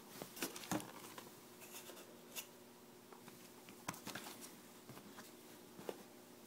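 A shrink-wrapped iPhone 5 box being handled and turned in the hands: scattered light taps, clicks and plastic crinkles, the loudest about half a second in, over a faint steady hum.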